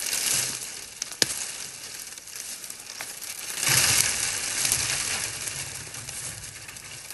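Dry twigs and brush crackling and rustling as a freshly cut sapling is pulled and handled through dry undergrowth. There is one sharp knock about a second in, like a knife blade striking the wood, and the rustling swells loudest a little past the middle.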